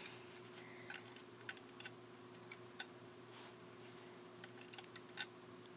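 A few faint, scattered clicks and taps of Lego plastic pieces as minifigures are pulled out of a built set, over a faint steady hum.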